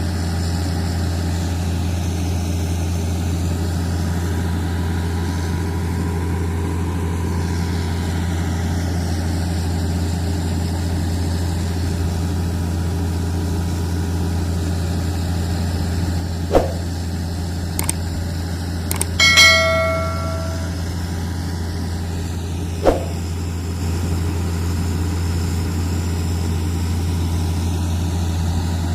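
Heavy-equipment diesel engine running steadily with a low drone, with a couple of sharp knocks and one ringing metallic clang about two-thirds of the way through.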